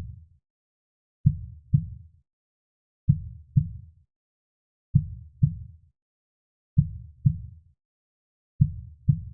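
Heartbeat sound: slow, low double thumps (lub-dub), five pairs about 1.8 seconds apart, steady in rhythm.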